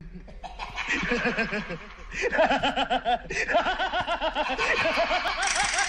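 Human laughter in rapid, repeated 'ha-ha-ha' bursts, several per second, getting louder about two seconds in.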